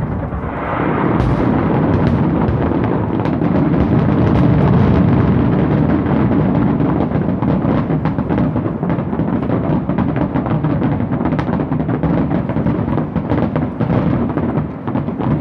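Fireworks crackling and banging in a dense, unbroken stream, like popcorn popping, over a deep rumble, with a sharper burst about a second in.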